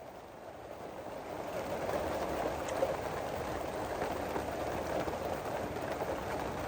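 Steady rainfall, fading in over the first two seconds, with a single sharp drop tick a little under three seconds in.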